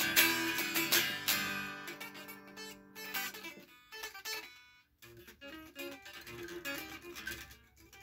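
SG-style electric guitar played as riffs: a loud chord struck at the start rings out and fades over about three seconds, then after a short break comes a run of quieter picked notes.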